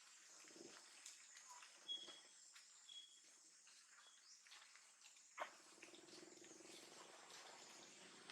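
Near silence: faint outdoor ambience with a steady high insect drone and three short high chirps about a second apart. A click comes about five seconds in, followed by a low steady hum.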